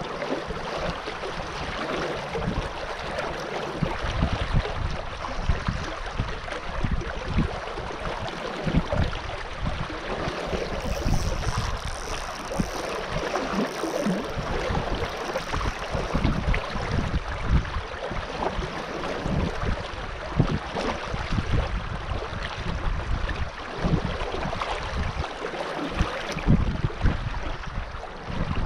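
River water running and rippling close to the microphone, with wind buffeting the microphone in irregular low gusts.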